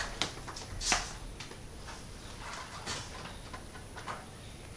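Scattered light clicks and taps from an old fluorescent light fixture being handled while its mounting screws are searched for. The sharpest tap comes about a second in, another near three seconds.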